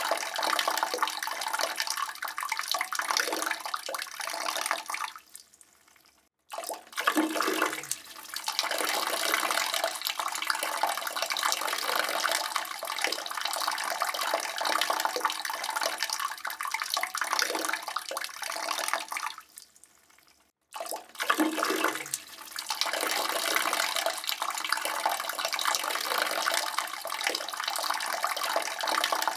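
A man urinating into a toilet bowl: a steady splashing stream that tapers off and stops about six seconds in, starts again strongly a moment later, and does the same again about twenty seconds in.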